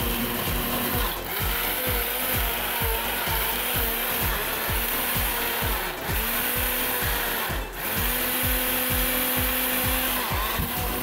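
Ninja personal blender motor running, blending a protein shake with ice cubes, with short breaks about a second in and twice near the middle.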